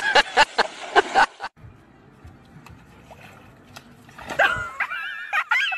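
Water splashing and sloshing as a dog tumbles from a canoe into the water. It stops about a second and a half in. After a lull, from about four seconds in, a dog whines in high, held calls that step up in pitch near the end.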